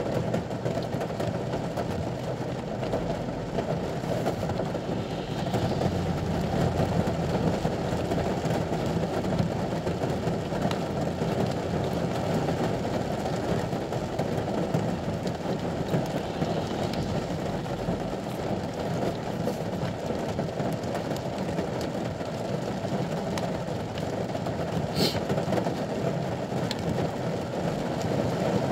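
Rain falling on the roof of a ute, heard from inside the cab as a steady dense patter, with a single sharp click near the end.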